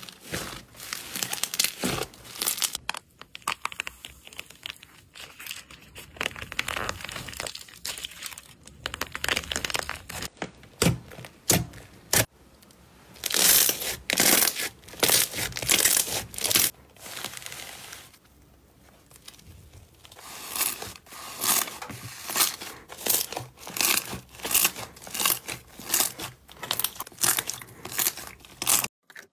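Fluffy slime being squeezed, pressed and kneaded by hand: a series of short squishing, crackling bursts, falling into an even rhythm of about one and a half a second near the end.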